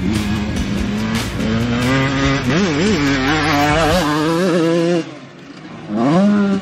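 Small dirt bike engines revving, the pitch climbing and dropping with the throttle and gear changes. The sound falls away briefly near the end, then another bike revs up sharply.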